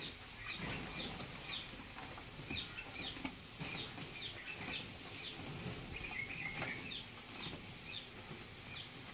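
A calf and a young water buffalo feeding from a trough of dry fodder: faint, irregular crackling and rustling of straw as they root through it and munch.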